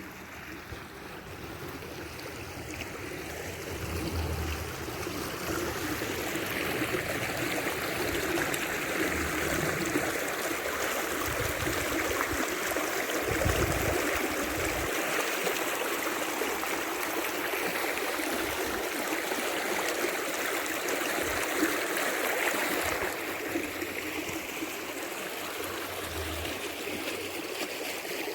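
River water rushing along in a steady flow, swelling louder a few seconds in and easing a little near the end, with a few brief low thumps.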